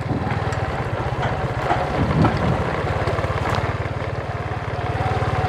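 Motorbike engine running at a steady speed with a fast, even beat, with wind noise on the microphone.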